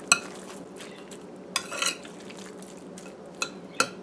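A metal spoon stirring raw pork chunks and wet blended garlic seasoning in a glass bowl, with a few sharp clinks of the spoon against the glass: one near the start, a short run in the middle and two near the end.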